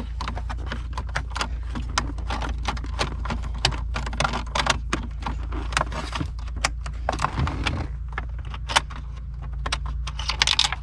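Irregular small metallic clicks and rattles from a screwdriver working out a T15 Torx screw from a Corvette's console trim, over a steady low hum.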